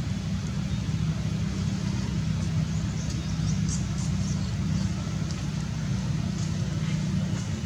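A steady low motor hum, with a few faint, short, high squeaks about halfway through.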